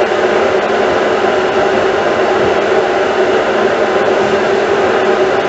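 Kitchen range hood's extractor fan running, a steady rush of air with a low hum.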